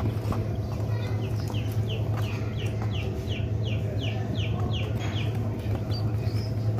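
Young chicks peeping in a box: a run of quick, falling chirps, about three a second, that stops about two-thirds of the way through. A steady low hum runs underneath.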